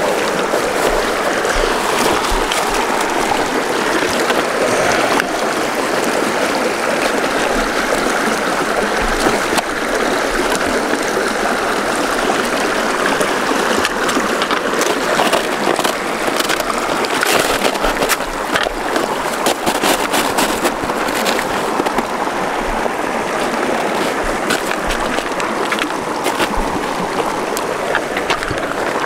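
A small mountain creek rushing steadily, with scattered clicks, knocks and scuffs from footsteps and trekking poles as a hiker crosses it.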